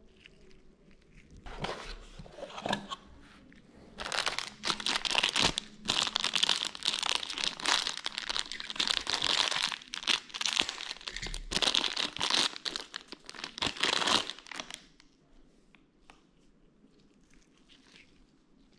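Clear plastic bags crinkling and rustling as gloved hands unwrap engine valves from their packaging. The rustling builds about a second and a half in, is loudest for most of the middle, and dies away a few seconds before the end.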